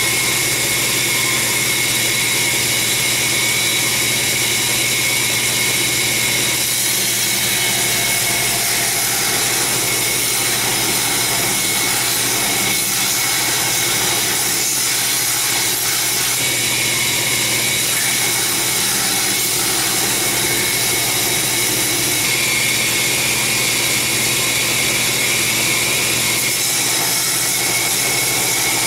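Belt grinder running with a steady high whine as a long steel sword blade is held against the abrasive belt, grinding the steel and throwing sparks.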